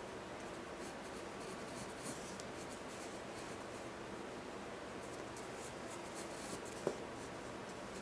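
Pencil lead scratching across drawing paper in short, repeated sketching strokes, with one short click about seven seconds in.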